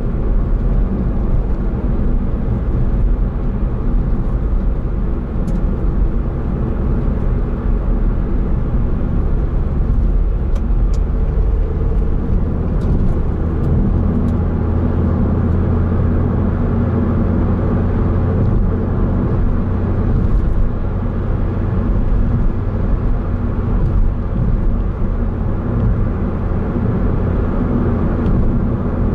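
Steady low rumble of a car's tyres and engine, heard from inside the cabin while cruising on a highway.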